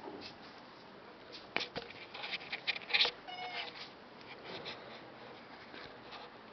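A domestic cat gives one short meow a little past three seconds in, just after a quick run of clicks and taps.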